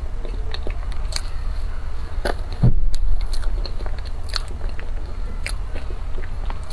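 Close-miked mouth sounds of someone eating soft mango cream sponge cake off a spoon: small wet clicks and smacks of chewing, with one louder low thump about two and a half seconds in.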